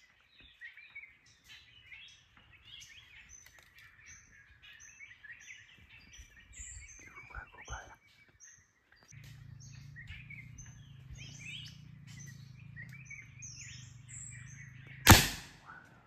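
Many small birds chirping and calling in quick short notes, with a low steady hum joining about nine seconds in. A single sharp, loud crack sounds near the end.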